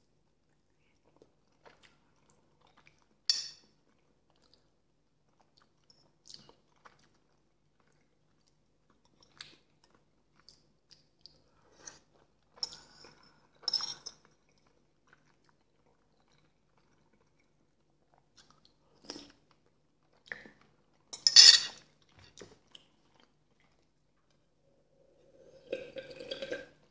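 Close-miked eating sounds of potato vareniki with sour cream: sparse wet chewing and lip smacks with long quiet gaps, and a few clicks of a utensil against the bowl, the loudest about 21 s in. Near the end, a run of swallowing as pickle brine is drunk from a jar.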